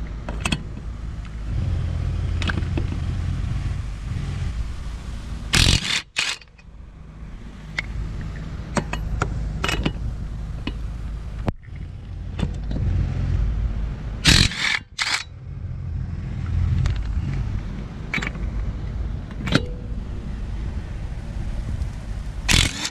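HART 1/2-inch drive impact wrench with a 21 mm socket hammering rusty lug nuts loose, a steady fast rattle in long runs. Short pauses come about 6 and 15 seconds in and again near the end, each with a sharp clank.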